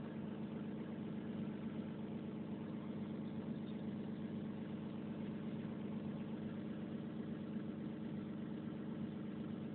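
Diesel engine of a Volvo 360 excavator idling steadily with an even low hum.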